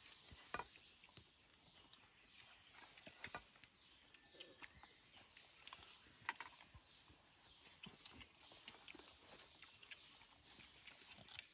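Faint, irregular small clicks and rustles of people eating with their hands from food spread on banana leaves.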